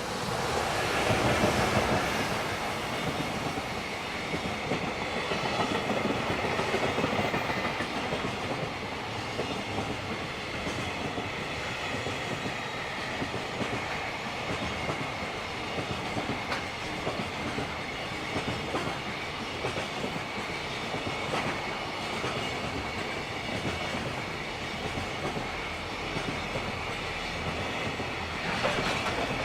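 JR Freight freight train passing close by. The loudest part comes a second or two in, then a long steady run of wagon wheels clickety-clacking over the rails. A faint high wheel squeal runs through the second half.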